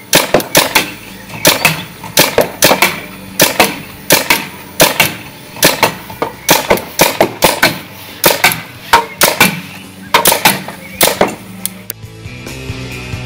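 Paintball marker firing rapid shots in quick clusters, many sharp pops in a row. Near the end the shooting stops and rock music starts.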